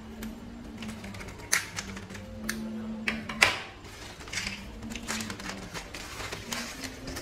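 Thin wooden strips and tape being handled, rustling and clicking, with two sharp snaps about a second and a half in and near the middle, the second the loudest. Quiet background music runs underneath.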